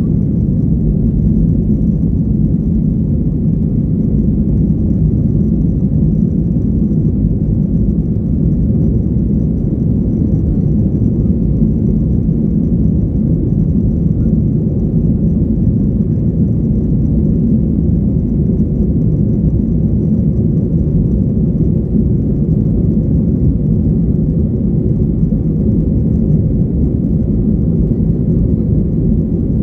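Boeing 757-300 jet engines heard inside the passenger cabin at takeoff power, a steady low-pitched roar through the end of the takeoff run and the initial climb.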